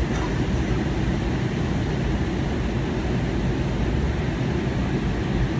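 Steady low rumble inside the cabin of a McDonnell Douglas MD-80 airliner in flight: airflow and engine noise.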